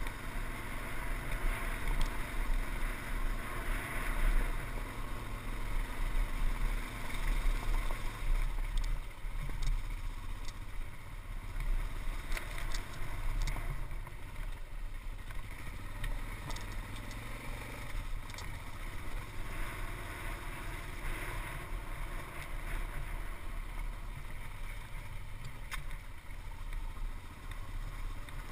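Off-road motorcycle engine running as the bike rides a rough, rocky trail, with wind noise and a few short knocks.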